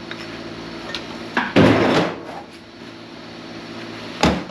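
An old hydraulic press runs with a steady hum while two loud metal clunks sound from the scrap transformers being handled and broken. The first, about one and a half seconds in, is heavy and lasts about half a second. The second, near the end, is a short sharp knock.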